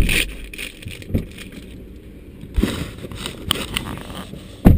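A paper cookie wrapper crinkling as it is pulled open by hand, with several dull knocks of hands bumping the camera. The loudest knocks come at the start and near the end.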